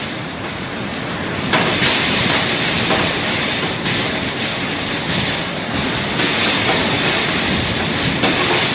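Hurricane-force wind blowing hard, a steady rushing roar that surges and eases in gusts.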